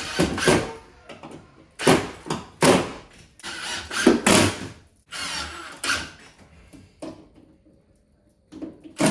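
Building work: an irregular run of short knocks and scrapes from tools and materials, with a brief quiet gap near the end.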